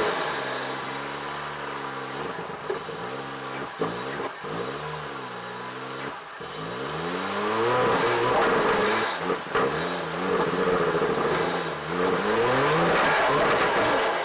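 Lexus SC300's 1JZ inline-six running just after it fires up, revved up and down over and over, with louder, higher revs in the second half. It now runs on a fresh set of spark plugs, which cured its no-start.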